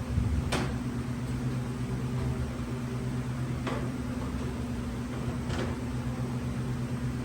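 A steady low machine hum, like a motor or fan running, with four short knocks spread a couple of seconds apart.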